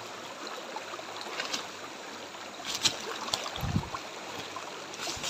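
Shallow river water rushing and gurgling around someone wading through it, with a sharp knock about three seconds in and a low thump just after.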